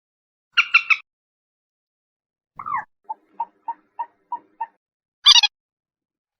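Common moorhen calling: a quick three-note burst, then a single call followed by six short evenly spaced notes about three a second, and a sharp, high three-note call near the end.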